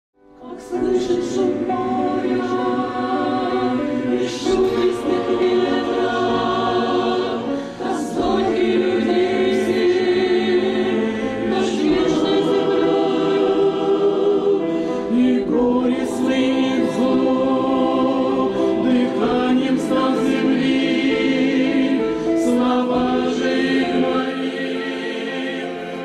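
Mixed church choir of men and women singing a hymn in Russian, fading in over the first second.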